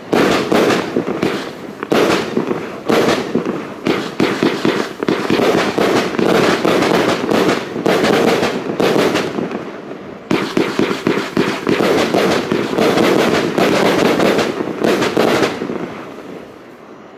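Funke 'Blitzgewitter' firework battery (cake) firing in rapid succession: launch thumps and sharp titanium-break bangs, several a second, as gold-tailed shells burst into strobing star bouquets. The barrage drops briefly about ten seconds in, restarts with a sharp bang, and dies away near the end as the battery burns out.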